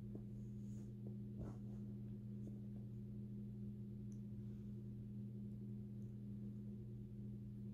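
A steady low hum, faint, with a few soft clicks and taps in the first two seconds as hands handle a hot glue gun and ribbon.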